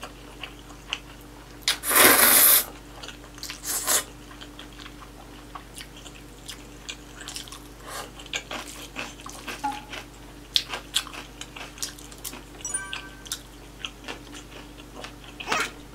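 Bibimmyeon (spicy cold noodles) slurped in one loud drawn-in gulp about two seconds in, followed by close-miked wet chewing with many small mouth clicks and smacks.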